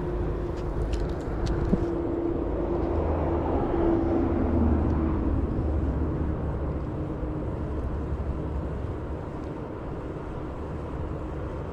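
Shallow mountain river rushing steadily over rocks, with low rumble from wind on the microphone.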